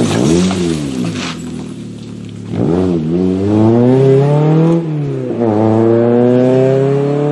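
Rally car engine revving hard as the car recovers from a slide into the verge, with leaves and gravel clattering at the start. A few seconds in it pulls away, the revs climbing, dropping at an upshift about halfway through, then climbing again.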